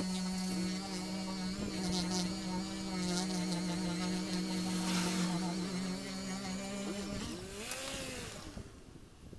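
Dual-action car polisher's electric motor running on a bonnet, sped up by fast-forwarding into a steady buzz. Its pitch shifts about six seconds in, then wavers and dies away near the end as the polisher is lifted off.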